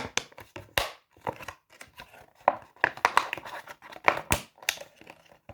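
Bubbles of a knockoff silicone pop-it fidget toy being pressed, giving a string of irregular sharp pops.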